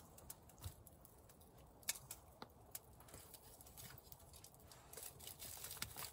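Campfire crackling faintly: a few sharp, irregular pops and clicks over a quiet background.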